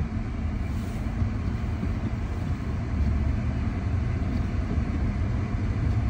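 Steady low rumble of road and engine noise inside a car's cabin while driving on a snow-covered road.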